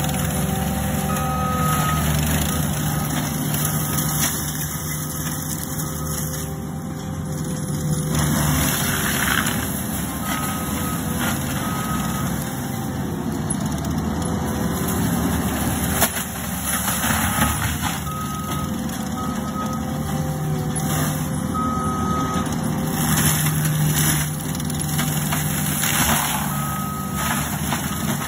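ASV RT-135 compact track loader running hard with its forestry mulcher head spinning, grinding through brush with a few louder crunches. Its backup alarm beeps in short runs as it reverses.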